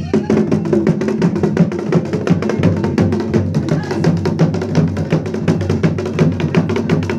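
Dhol drumming in a fast, steady rhythm, the ritual beat of a Garhwali mandan dance in which dancers are taken to be possessed by the goddess.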